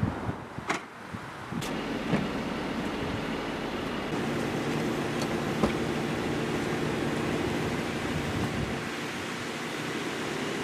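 Steady low running noise of a car, with a few sharp clicks and knocks in the first couple of seconds and one more just past the middle.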